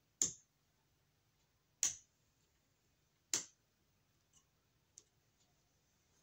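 Three sharp clicks about a second and a half apart, then two faint ticks.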